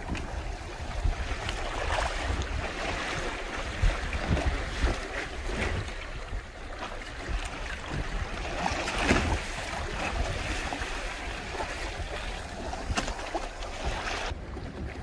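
Wind buffeting the microphone, with choppy seawater rushing and splashing against the hull of a Hobie Tandem Island sailing kayak under way; the splashes come unevenly every few seconds. Near the end the water hiss drops away abruptly.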